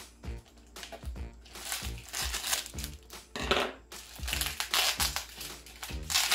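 Kraft paper and clear plastic shipping wrap crinkling in several bursts as it is cut and pulled off a potted plant, over steady background music.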